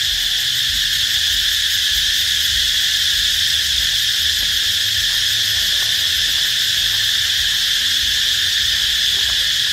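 Loud, steady chorus of crickets, a continuous high shrill that does not let up.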